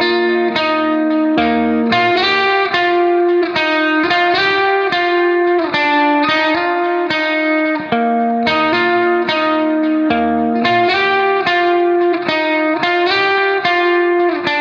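Background music: a plucked guitar melody with effects, notes struck at a steady even pace over a soft low bass line.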